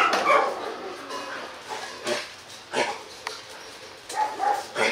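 Hmong bobtail dogs giving short yips and whines. The calls are spaced out, with the loudest near the start and again near the end.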